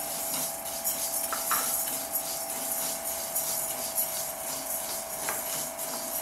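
A wooden spoon stirs dry horsegram seeds in an aluminium kadai, scraping and rattling in repeated strokes. The seeds are being dry-roasted with no oil until they smell fragrant.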